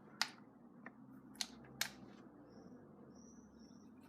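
A few faint, sharp plastic clicks in the first two seconds, from a battery being handled and fitted into a toy RC car.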